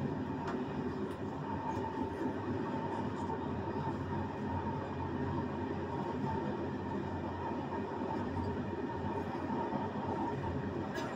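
Passenger train running along the track, heard from the rear of the last carriage: a steady rumble of wheels on rails with a faint, steady high whine and a few light clicks.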